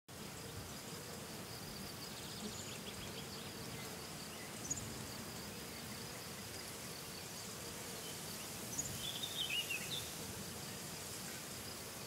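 Meadow ambience: insects buzzing steadily and quietly, with a few brief bird chirps about a third of the way in and again near the end.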